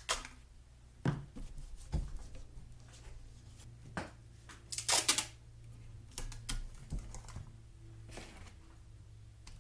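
Aluminium foil tape being handled and pressed down over exhaust manifold ports: irregular crinkles and light taps, with a louder crinkling burst about halfway through, over a faint steady low hum.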